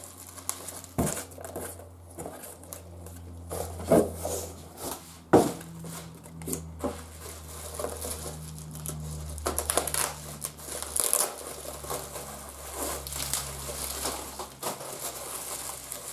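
Plastic bubble wrap crinkling as it is handled and unrolled, with a few sharp knocks in the first half.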